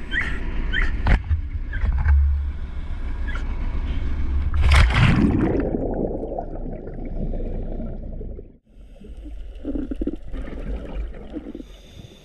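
Low rumble on the open deck of a dive boat, then about five seconds in a loud splash as a scuba diver drops into the sea, turning into a muffled underwater rush of bubbles that fades. After a short break, muffled bubbling bursts from the diver's regulator underwater.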